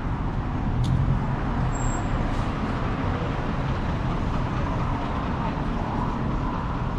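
Steady rumble of car engines and road traffic.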